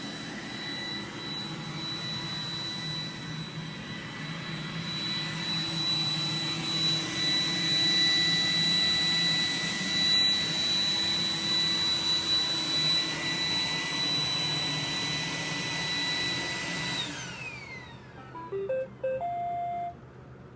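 iRobot Roomba 980 robot vacuum running, a steady whine over the rush of its vacuum fan and brushes. About seventeen seconds in, the motor winds down with a falling whine as it finishes cleaning. A short series of electronic beep tones follows.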